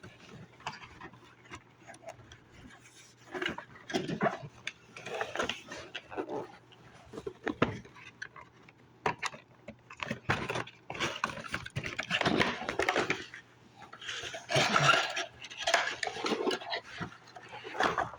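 Toy packaging being worked open by hand: irregular scraping and rustling of cardboard and plastic with scattered clicks, busier in the second half.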